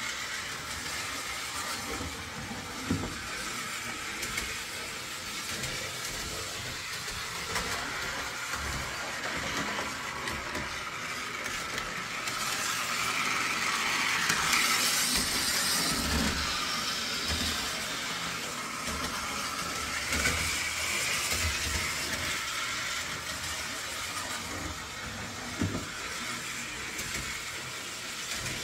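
Lionel O27 toy train locomotive with a can motor running around three-rail track: a steady motor whir and wheel rumble that swells for a few seconds about halfway through as it passes close, with a few sharp clicks from the wheels and track. It runs really smooth, freshly cleaned and lubed.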